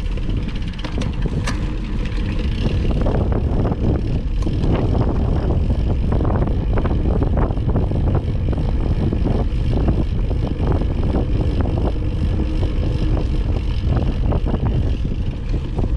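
Mountain bike ridden over rough trail: wind rushing over the microphone, with a constant rattle of short clicks and knocks from the bike over the ground.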